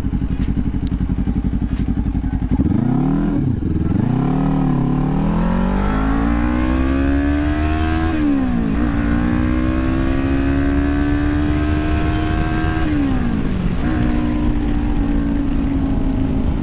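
2018 Kawasaki Ninja 400's parallel-twin engine heard from the rider's helmet camera, holding a steady note, then dipping and wavering about three seconds in. It then climbs in pitch under acceleration, with a quick drop at each of two upshifts, about eight and thirteen seconds in.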